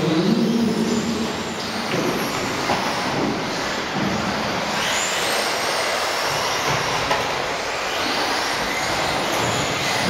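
Several 1/10-scale electric off-road buggies racing on a carpet track: a steady wash of motor and gear whine and tyre noise, with whines rising and falling as the cars speed up and slow for corners.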